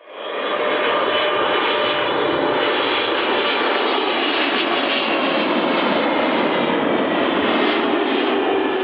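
Boeing 777 twin-engine jet airliner flying low on landing approach: steady jet engine noise with whining tones that slowly fall in pitch. It fades in at the start.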